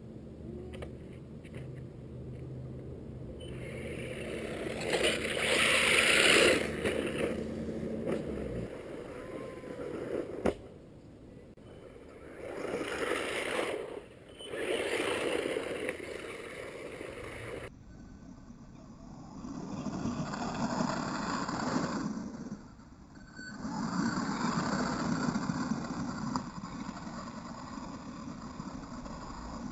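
DHK Wolf 2 1/10 electric RC buggy with a brushless motor driving hard on a dirt track. Its motor and tyres on dirt swell and fade as it passes the camera several times, loudest about six seconds in. A sharp knock comes about ten seconds in.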